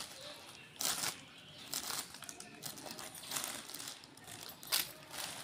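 Rustling and crinkling of folded cotton garments and their clear plastic wrapping being picked up and shifted by hand, in several short bursts, the loudest about a second in and another near the end.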